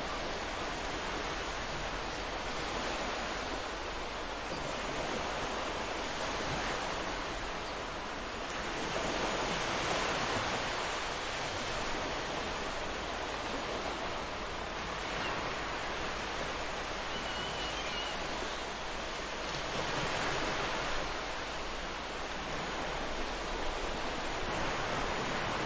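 Ocean surf washing onto a sandy beach: a steady rush of waves, swelling louder as larger waves break about nine and twenty seconds in.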